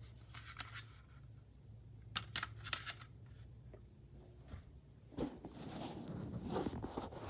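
Faint handling noise of objects being picked up and moved: a few sharp clicks near the start, a quick cluster of clicks about two to three seconds in, then rustling that grows near the end.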